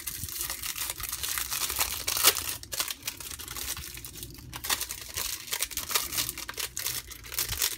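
Clear plastic film crinkling and tearing as it is peeled off a new speedcube: a dense run of crackles, with the loudest about two seconds in.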